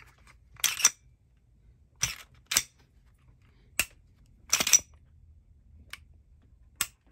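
Sharp metallic clicks and clacks from a Glock 20-pattern 10mm pistol fitted with a Timney trigger, as its slide is racked and its trigger is dry-fired. There are about eight clicks, some of them single and some in quick pairs.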